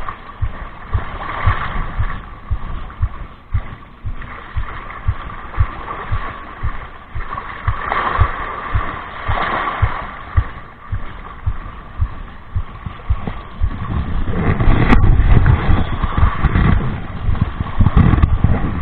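Wading through shallow sea water: regular dull thumps of the steps with water sloshing around the legs, and wind rumbling on the microphone, heavier in the last few seconds.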